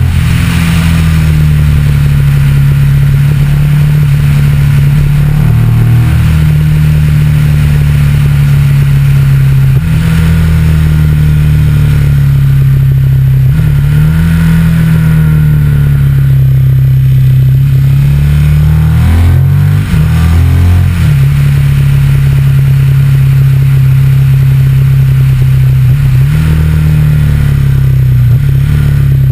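Motorcycle engine running under way, heard close from a camera mounted on the bike, over steady wind and road noise. The engine note holds steady between several drops and rises in pitch as the throttle and gears change, with the largest dip and climb about twenty seconds in.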